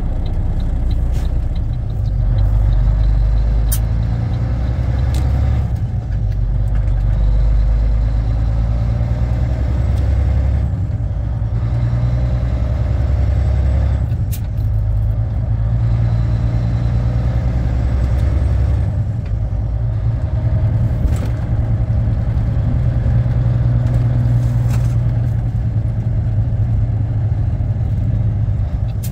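Volvo VNL780 semi-truck's diesel engine heard from inside the cab, pulling away and working up through the gears of its manual transmission. The engine note dips briefly at each of several shifts. A few sharp clicks come over the engine sound.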